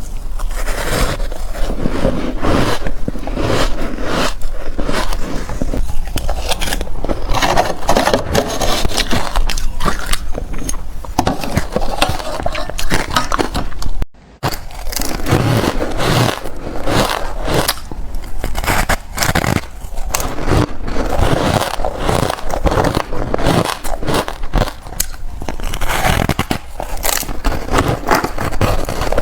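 Close-miked biting and chewing of reshaped, powdery ice: dense, rapid crunching and scraping crackles, with a brief break about fourteen seconds in.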